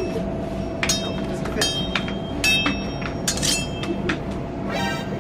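Sword-clash sound effects: a string of sharp, ringing metallic clangs over a steady low drone, the last clang longer than the others.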